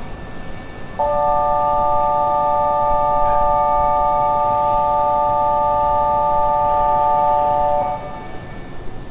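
Station departure signal: an electronic chord of several steady tones that sounds for about seven seconds, starting about a second in and cutting off sharply, warning that the train is about to leave.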